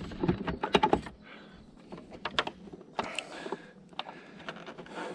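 Irregular small clicks and taps, a quick cluster in the first second and then a few scattered ones, as the plastic indicator bulb holder just freed from the motorcycle's front fairing is handled.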